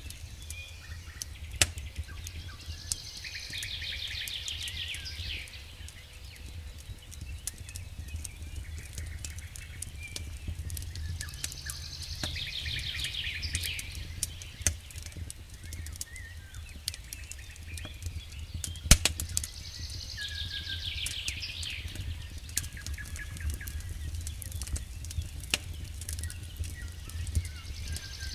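Wood campfire crackling, with many sharp pops and snaps and one loud pop about two-thirds of the way through, over a low steady rumble. A bird sings a short song of rapid, high notes four times, about every eight seconds.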